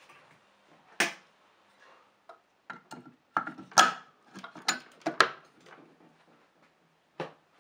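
Metal clicks and knocks as an aluminium alternator cover is handled and pressed onto a Minarelli 125cc engine's crankcase over the flywheel: one sharp click about a second in, a run of clatter and knocks from about three to five seconds in, and one more click near the end.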